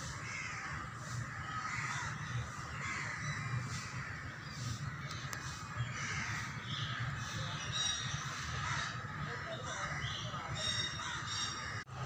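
Birds calling: many short, faint calls and chirps come and go, with a few higher, clearer chirps about eight and eleven seconds in, over a steady low hum.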